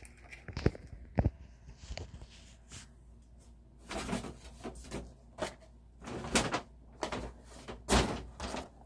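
Packaged 1/64 diecast cars being handled on a table: scattered light plastic clicks and knocks, with a few brief rustles of the blister-card packaging.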